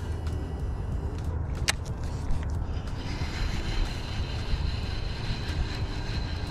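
Boat motor running steadily at low speed, with a sharp click about a second and a half in and a faint high whine joining about halfway through.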